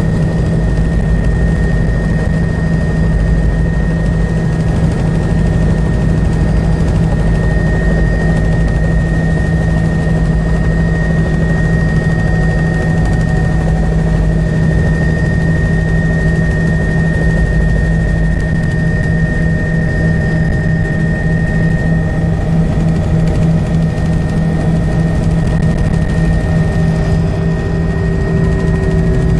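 Helicopter in steady flight, heard from inside the cabin: a loud, even drone with a fast rotor pulse underneath and a steady high whine above it.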